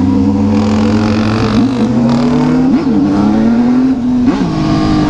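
Motorcycle engine running steadily while riding in a group of motorcycles, its pitch slowly rising, with wind noise. Three quick rev blips go up and back down.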